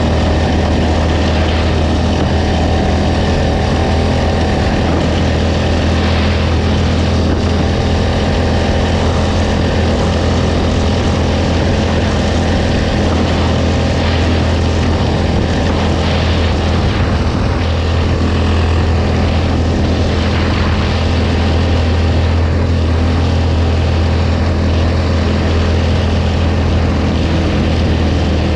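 ATV engine running at a steady, unchanging speed while riding, with wind and terrain noise over it.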